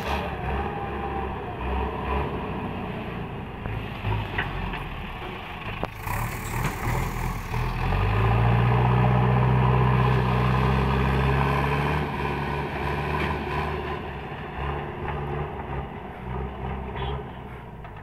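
JCB backhoe loader's diesel engine running steadily. About eight seconds in, it pulls harder for a few seconds, its pitch rising slightly, as the front loader bucket is dropped and pushed through the dry soil.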